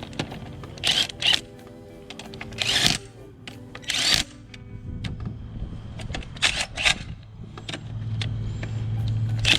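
Background music with several short, sharp bursts of noise, irregularly spaced, from the wheel and lug nuts being handled as the wheel is refitted.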